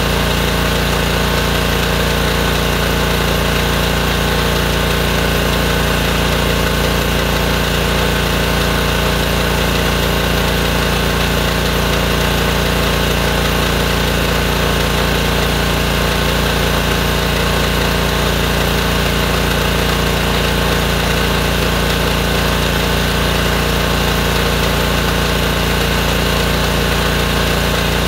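Gas-engined DeWalt pressure washer with a Honda engine running steadily at a constant speed, powering a hydro jetter that is clearing buildup from a kitchen drain line.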